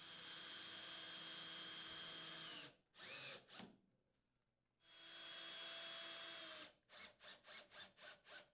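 Cordless drill-driver driving mounting screws through the unit's sheet-metal flange into the wall sleeve. The motor runs steadily for a couple of seconds, gives two brief stop-start spurts, then runs steadily again, and ends in about six quick short bursts.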